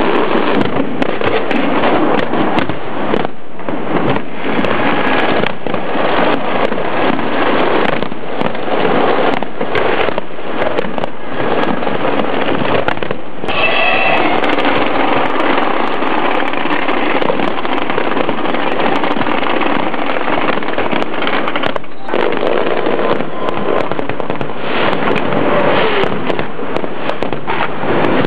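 Fireworks display going off continuously: dense crackling with many sharp bangs in quick succession.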